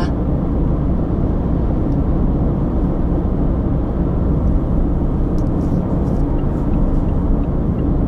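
Steady low rumble of a car driving at highway speed, heard inside the cabin: tyre and engine noise.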